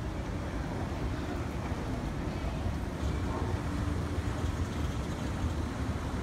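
Steady low rumble of background noise in an airport terminal hall.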